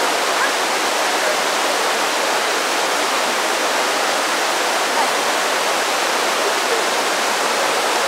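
Jōren Falls, a single tall column of water plunging into its pool below a basalt cliff: a steady, even rush of falling water.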